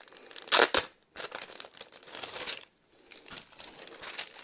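A sheet of wet-palette paper crinkling and rustling in the hands, with one loud sharp rustle about half a second in and a brief pause near the end.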